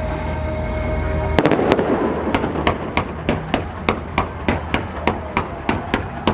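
Fireworks going off: a loud bang about a second and a half in, then an even, rapid run of sharp pops at about three a second.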